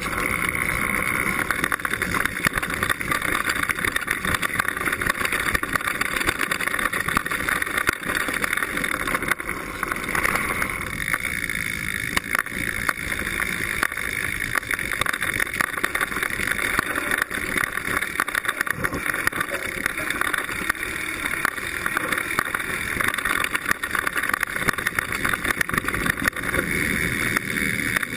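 Mountain bike riding fast down a rough dirt trail: a constant rush of tyres and wind with many small rattles and knocks as the bike jolts over the ground, picked up by a camera fixed to the seatpost.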